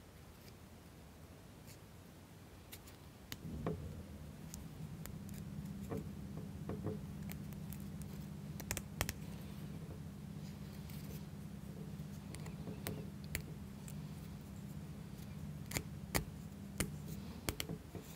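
Light clicks and scrapes of small wooden model-kit parts being handled and fitted together, a washer worked onto a thin wooden shaft. A low steady hum comes in about three seconds in and stops shortly before the end.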